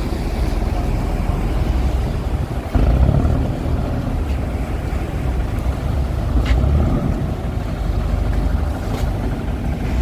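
Boat's engine running steadily under way, a low continuous rumble with wind buffeting the microphone.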